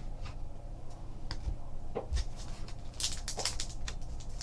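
Foil trading-card pack wrapper being handled, with a few light clicks of cards and pack; about three seconds in, the foil starts crinkling as it is torn open.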